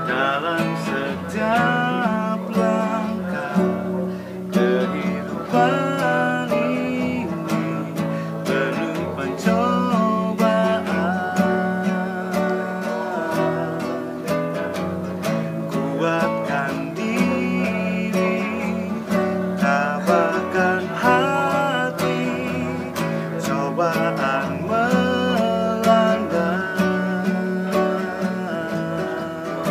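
A man singing a slow, melodic song while strumming an acoustic guitar.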